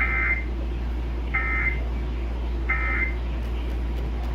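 Emergency Alert System end-of-message data bursts: three short, identical digital screeches about 1.4 seconds apart, closing the broadcast alert, over a steady low hum.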